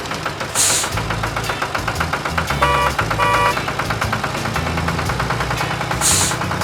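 Cartoon truck sound effects: an engine running with a fast, even rattle, two short beeps near the middle like a reversing alarm, and short bursts of hiss near the start and near the end.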